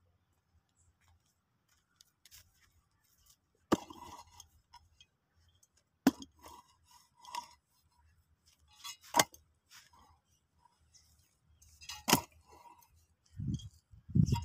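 Mattock chopping into dry, hard-packed soil: four sharp strikes about three seconds apart, each followed by a short rattle of loosened earth and dry roots, with heavier low thumps near the end.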